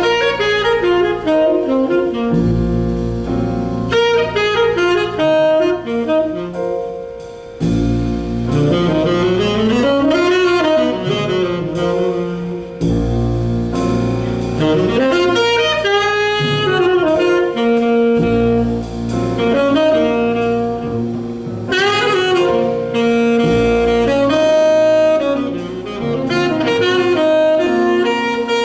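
Tenor saxophone playing a jazz solo of quick runs and bent, gliding notes, over a jazz orchestra's low sustained backing.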